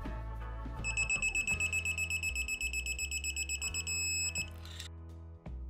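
Summit digital torque wrench's beeper sounding a high, rapidly pulsing beep for about three and a half seconds, starting about a second in. The beep signals that the head nut has reached the set torque of 23 foot-pounds on the final pass.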